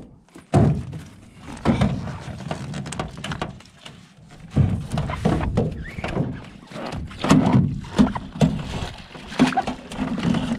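Irregular thunks and knocks against the hull of a small metal jon boat as the landing net and a freshly caught trout are handled in the bottom of the boat. Splashing near the end as the net goes into the water.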